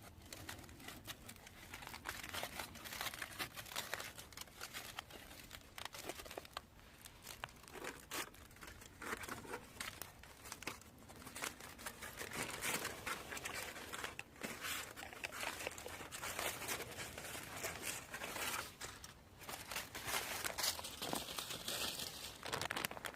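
Foil crinkling and tearing in irregular bursts as a campfire-baked jacket potato is unwrapped and opened up.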